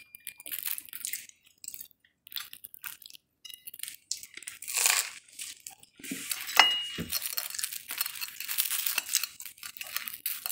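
Eating an egg sandwich close to the microphone: soft crunching and chewing of the bread, with the sandwich being handled over a plate and a single ringing clink of the plate about six and a half seconds in.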